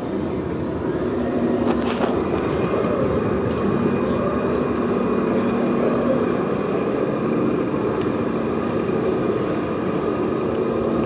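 1:16 remote-controlled tank model driving over mud: a steady engine-like hum that slowly rises and falls in pitch, with one sharp knock about two seconds in.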